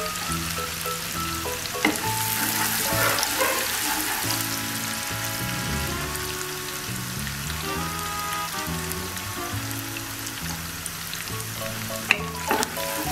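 Chopped onions deep-frying in oil in a karahi, a steady sizzle as they brown into beresta (crisp fried onions). Background music plays over it, with a sharp knock about two seconds in and a few more near the end.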